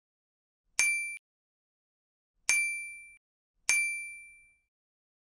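Three identical bright chime sound effects from an animated like-and-subscribe end screen. Each starts sharply and rings out to fade. The first is cut short, and the later two come about a second apart.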